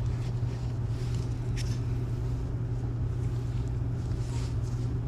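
A steady low machine hum, with a single light click about one and a half seconds in as the spark plug and feeler gauge are handled.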